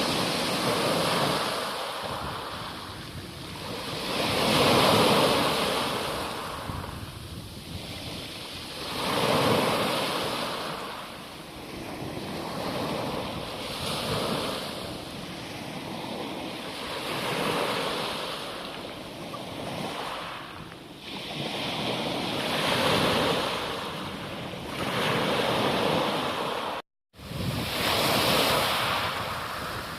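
Sea waves breaking and washing up a beach, each surge swelling and fading every four to five seconds, with wind buffeting the microphone. The sound cuts out for a moment about 27 seconds in.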